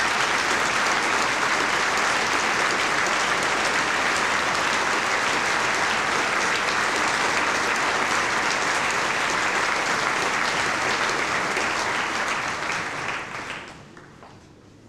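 Large audience applauding steadily, then dying away near the end.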